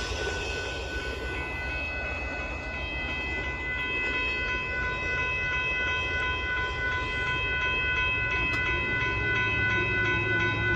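Amtrak Texas Eagle passenger train rolling past: a steady low rumble under a set of steady high-pitched tones that build up over the first few seconds and then hold.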